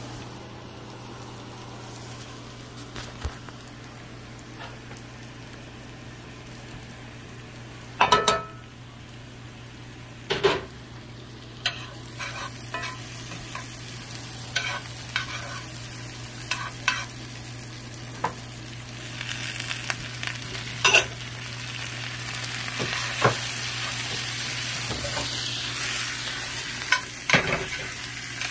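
Potatoes and onions frying in fat in a cast iron skillet, stirred with a metal spoon that knocks and scrapes against the pan in sharp clicks, the loudest about eight seconds in. The sizzling grows louder in the second half, over a steady low hum.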